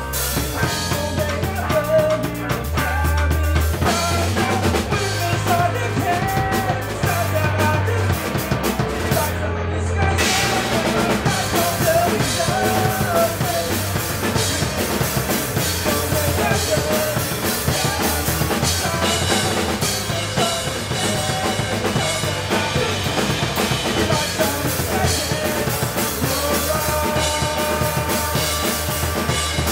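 Live rock band playing: drum kit, distorted electric guitars and bass together. About nine seconds in, the drums and cymbals drop out for a moment under a held low note, then the full band comes back in.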